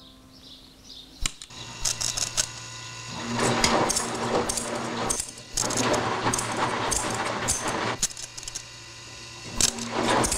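Washing machine rigged to drive a row of scissors, clattering and clicking with a metallic rattle over a low motor hum. The clatter starts about a second in and grows busier after about three seconds.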